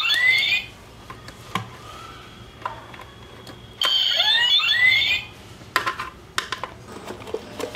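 An electronic toy money bank's small speaker sounds a short electronic alert of rising chirping sweeps, twice, about four seconds apart, as its trigger switch is worked: the speaker circuit works. Light plastic clicks come between and after the two alerts.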